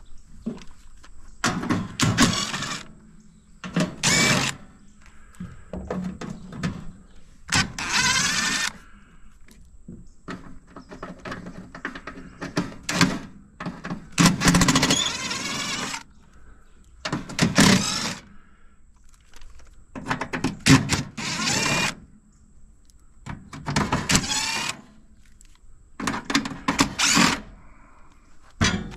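A tool working on fasteners while dismantling an AC unit for scrap: about ten separate bursts of a second or so each, with short quieter gaps between.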